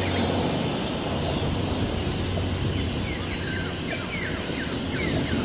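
Outdoor forest ambience: birds chirping in many short calls over a steady hiss, with a high steady whine joining for about two seconds in the second half.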